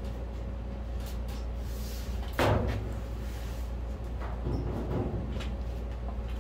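The steel hood of a 1956 Chevy Bel Air being pressed down and worked on its hinges: one sharp clunk about two and a half seconds in, then a few softer knocks, over a steady low hum.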